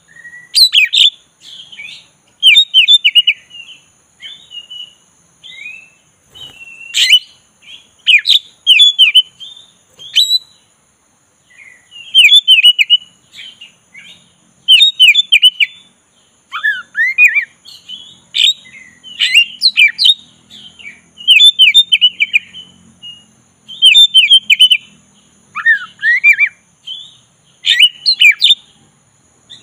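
Oriental magpie-robin (black-breasted kacer) singing a long, varied run of short phrases, many with sharp downward sweeps, in quick bursts with brief pauses between them.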